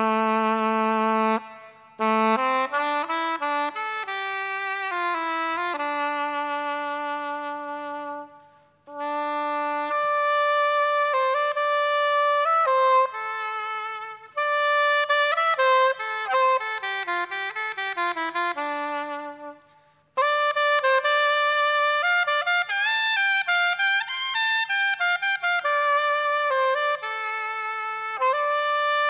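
Live band music: a solo wind instrument plays a flowing, ornamented melody in phrases, with short breaks between them and no drums heard.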